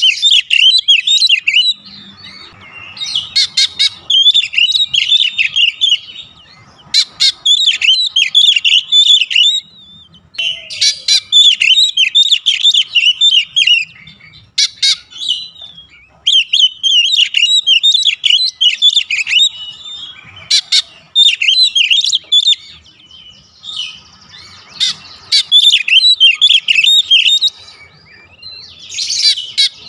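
Oriental magpie-robin singing: fast, varied runs of sharp chirps and whistles delivered in loud phrases of two to four seconds, separated by short pauses.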